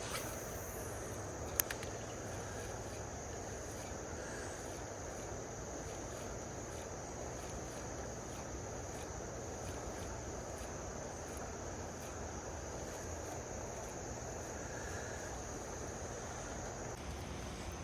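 A steady, high-pitched insect chorus over the even rush of flowing creek water, with a single sharp click about a second and a half in.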